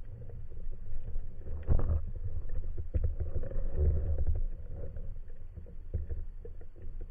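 Underwater sound picked up by a camera in its housing on a speargun: a dull low rumble of water with scattered clicks and knocks, swelling louder about two seconds in and again around four seconds.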